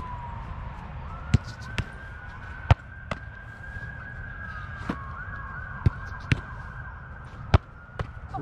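An emergency-vehicle siren wailing, its pitch sliding slowly up and down, with a quicker warble a little past the middle. About nine sharp thuds of a soccer ball being struck and handled on the turf sound over it; these are the loudest sounds.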